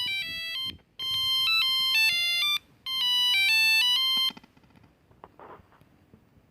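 Ericsson R310s mobile phone playing a monophonic ringtone: a short tune of stepped, buzzy beeping notes repeated phrase after phrase, cutting off about four seconds in. A faint brief rustle follows.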